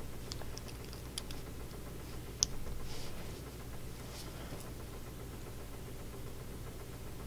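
Faint, scattered clicks of small LEGO pieces being handled and pressed together to build the Olaf figure, the sharpest about two and a half seconds in, over a steady low room hum.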